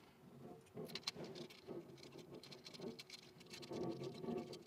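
Faint, scattered light clicks and scratches as small metal hook pieces and a clear shelf are handled inside a glass-door cabinet, with a slightly louder stretch of handling near the end.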